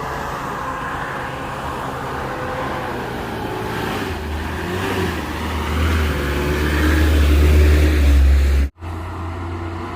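A heavy vehicle's engine pulling up a steep climb, its low hum growing louder over the second half, then cutting off abruptly for an instant near the end before a quieter engine sound resumes.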